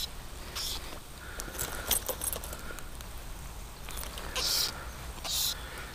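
Wind rumbling on the microphone, with scattered light clicks and a few short hissing noises as a hooked chub is played and landed on a fly rod.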